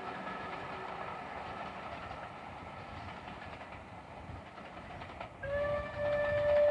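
Bulleid West Country class steam locomotive and its train running away into the distance, the train noise slowly growing quieter. About five seconds in, the locomotive's steam whistle sounds one long steady note, the loudest sound, still going at the end.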